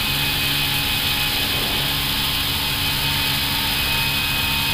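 Airbus A320 flight deck during the initial climb after takeoff: a steady rush of airflow and the jet engines at climb thrust, with a few faint steady tones under it.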